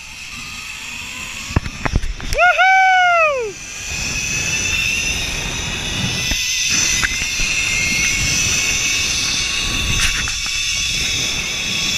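Zip line trolley pulleys running along the steel cable, a steady high whine that rises in pitch as the rider picks up speed, over wind buffeting the microphone. A loud whooping yell rises and falls about two and a half seconds in.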